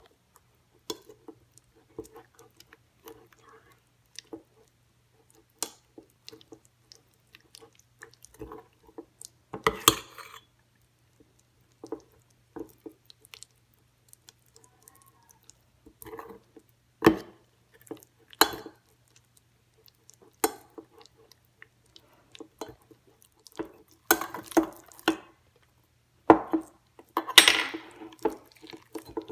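A utensil clinking, tapping and scraping against a bowl in scattered, irregular knocks as slime ingredients are mixed. The knocks grow louder and more frequent near the end.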